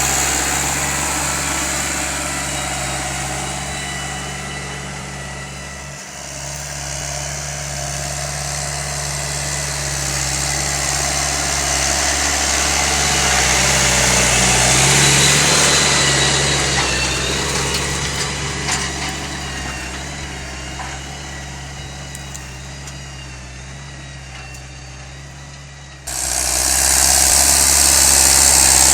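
John Deere 6210 tractor's diesel engine working while pulling a five-furrow reversible plough, growing louder toward the middle and then fading away. About 26 seconds in the sound jumps suddenly to a louder, closer engine noise.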